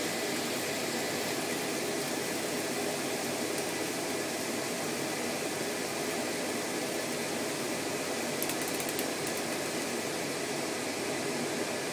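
Twin-motor CamVac dust extractor running steadily with both motors on, drawing air through the hoses and the Thien-baffle cyclone separator with a constant rushing noise.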